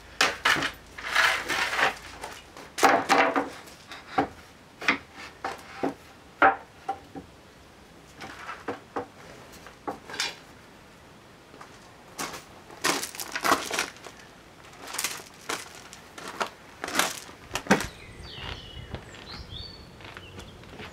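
Timber planks knocking and clattering as softwood shed floor joists are handled and laid down, in irregular wooden knocks of varying loudness. Faint bird chirps come in near the end.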